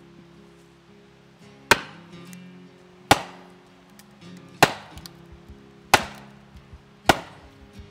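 Wooden club striking the back of an axe head set in a log, five sharp blows about one every second and a half, driving the axe down to split the log. Background music plays underneath.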